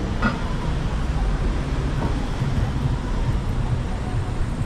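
Steady city-street traffic noise from passing cars, with faint voices of passers-by now and then.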